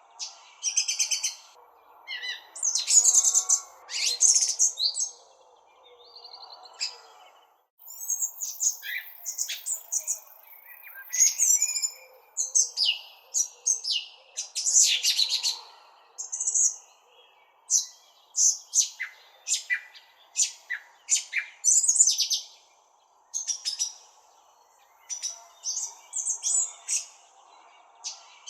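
Songbirds chirping and twittering in quick, irregular short calls, over a faint steady background hiss. The sound drops out briefly about eight seconds in.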